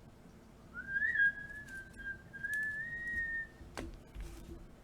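A person whistling one long, slightly wavering note for about three seconds, followed by a single click.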